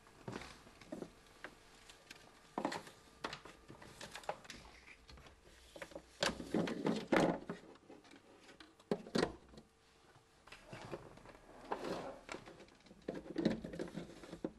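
Hands handling a plastic power-supply unit and its cable and fitting it into a plastic holder: irregular plastic clicks, knocks and rubbing, with a busier, louder cluster a little before the middle.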